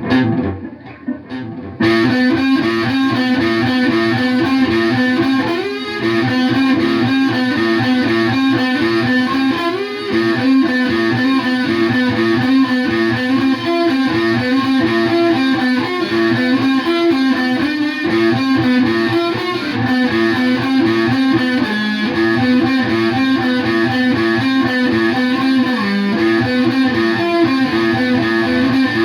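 Dean From Hell electric guitar played through distortion. After a few scattered sounds, a riff starts about two seconds in and repeats over and over.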